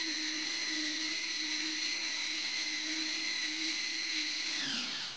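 Handheld electric belt sander running steadily on a pine board, with a high whine, taking the planer marks off the wood with a coarse belt. Near the end it is switched off, and its pitch falls as it winds down.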